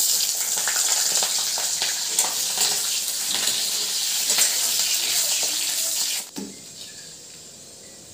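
Sliced onions and green chillies sizzling in hot oil in a metal kadai, with a metal spatula scraping as they are stirred. The sizzle cuts off suddenly about six seconds in, leaving quiet room sound.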